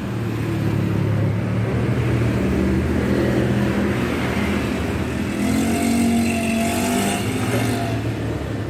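A motor vehicle engine running steadily with a low hum, joined in the second half by a higher engine note that comes and then fades.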